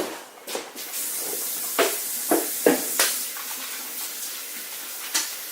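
Kitchen sink tap turned on and running in a steady hiss, with a few sharp knocks of things handled at the sink.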